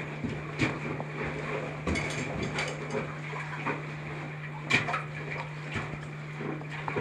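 Caver squeezing through a tight, low rock passage: overalls and gear scraping and rustling against the rock, with irregular knocks and clicks, the sharpest a little under five seconds in. A steady low hum runs underneath.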